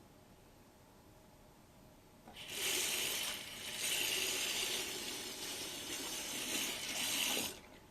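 Water running, as from a tap, for about five seconds; it starts suddenly after a couple of quiet seconds and cuts off suddenly near the end.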